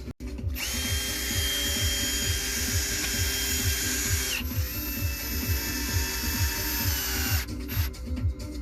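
Electric power tool motor running at full speed in two runs of about three and four seconds, with a steady whine and a brief blip near the end, over background music with a steady beat.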